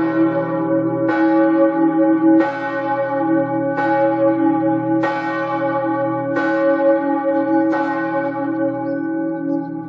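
A church bell tolling with seven strikes about a second and a quarter apart. Each strike rings on over the next, with a deep hum held beneath. After the last strike, near the end, the ringing fades.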